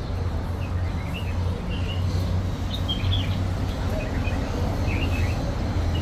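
Small birds chirping, short high calls scattered throughout, over a steady low hum.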